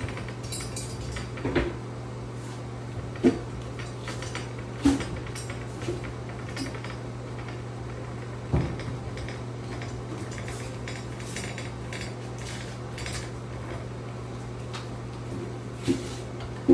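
Screws being tightened with a hand screwdriver on a metal shower valve trim plate: a handful of sharp metallic clinks and knocks at irregular intervals, with fainter ticks and scrapes between them. A steady low hum runs underneath.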